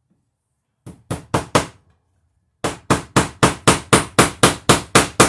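A hammer driving a cable staple into wood to fasten electrical cable. Four quick strikes, a short pause, then a steady run of strikes at about four a second.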